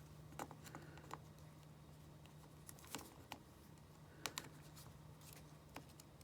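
Faint, scattered light clicks and taps of small phone parts being handled as an iPhone 5's display assembly is fitted onto its frame, with a sharper double click about four seconds in.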